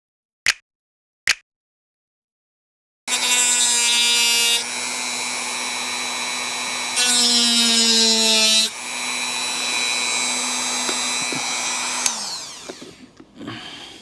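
Small handheld power tool with a high-speed motor running, used to cut a piece of bottle-cap plastic, after two sharp clicks. It runs steadily, speeds up and gets louder for a couple of seconds partway through, then spins down near the end.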